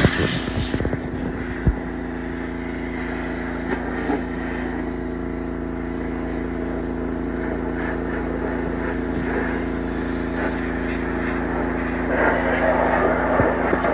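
Gas-engine pressure washer running with a steady engine hum and the hiss of the water spray, the spray getting louder near the end.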